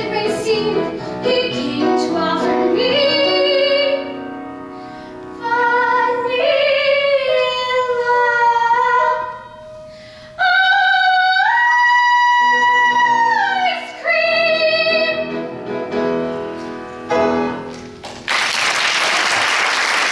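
A woman singing in a trained, operatic soprano style, working through the closing phrases of a musical-theatre song and holding a long high note for about three and a half seconds. Near the end the singing stops and applause starts.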